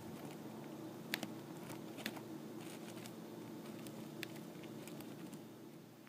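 Dwarf hamster eating millet spray: small sharp clicks and crunches of seeds being cracked, the sharpest about one, two and four seconds in.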